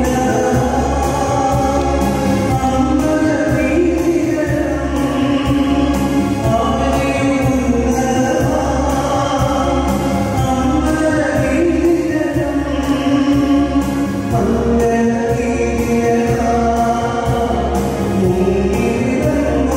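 A choir singing a Christian gospel song over instrumental accompaniment with a steady beat.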